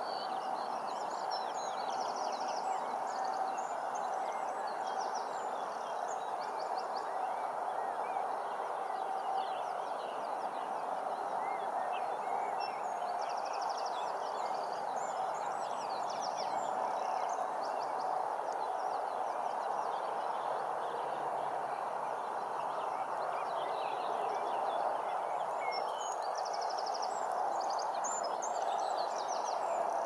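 Small songbirds chirping and singing, with short rapid trills every so often, over a steady rushing background noise.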